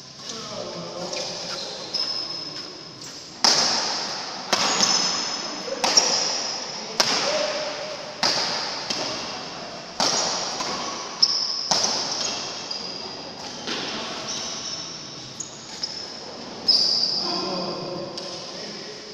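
Badminton rally: sharp cracks of rackets striking the shuttlecock about once a second, echoing in a large hall, with short high squeaks from shoes on the court. The hitting stops near the end.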